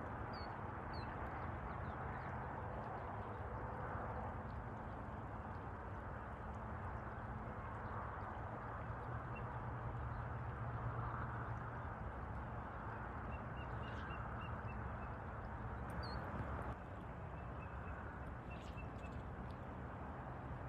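Steady rush of river water flowing over a stony bed. Faint high bird notes come in two short quick runs in the second half, with a few single chirps before them.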